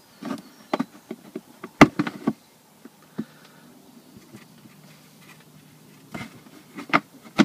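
A folding knife cutting through a thin plastic tray: an irregular run of sharp cracks and snaps as the blade punches and saws round a hole, the loudest about two seconds in, with a faint low buzz in the quieter middle stretch.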